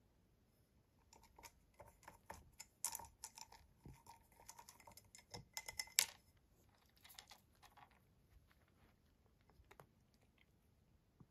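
A cat working at a plastic Cat Activity Fun Board treat puzzle: light, quick plastic clicks and taps from its clear domes and pegs, bunched together from about one second in until about eight seconds, loudest around six seconds in.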